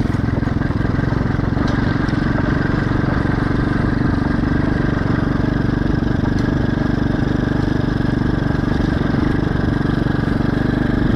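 A small engine running steadily at an even speed, with no breaks or changes in pitch.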